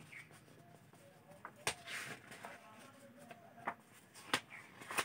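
Paper pages of a textbook being flipped by hand, rustling with several sharp crackling snaps as the pages turn over.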